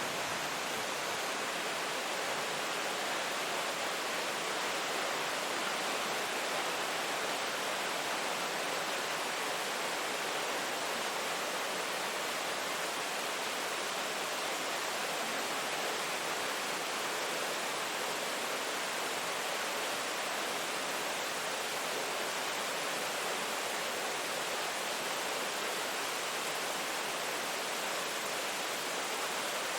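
Steady, even rain noise with no separate drops, thunder or changes.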